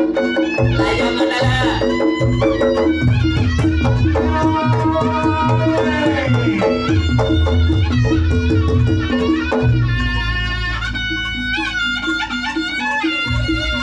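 Reog Ponorogo gamelan music played loud. A reedy slompret shawm melody bends and wails over kendang drums and a steady repeating pattern of struck gongs.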